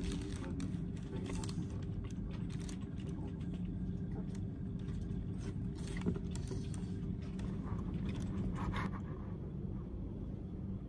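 Thin plastic bag crinkling and rustling as it is handled, in short crackles that stop about nine seconds in, over a steady low hum.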